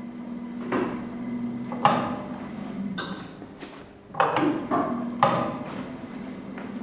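ERN 150 coil-winding machine running with a steady low hum, with several sharp clicks and knocks of metal parts and tools being handled over it.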